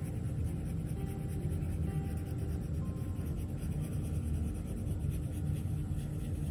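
A brown oil pastel crayon rubbing steadily across drawing paper as the centre of a drawing is coloured in, with faint background music.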